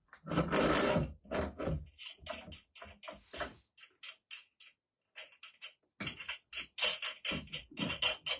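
Metal parts being handled and tightened together by hand: a run of irregular clicks, rattles and scrapes, busiest in the first second and again from about six seconds in, with a short lull in between.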